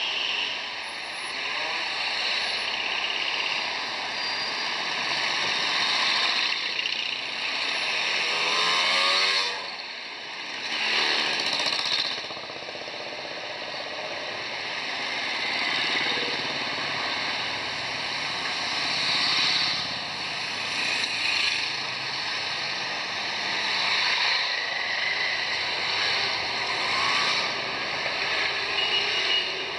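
A procession of motorcycles riding slowly past one after another, engines running and revving, the sound swelling and fading as each bike passes. About nine seconds in, one engine revs up with a rising pitch.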